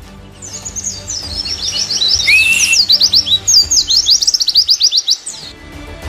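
A pleci (white-eye) singing: a fast twittering run of high, steeply sweeping chirps, with one lower rising whistle about halfway through.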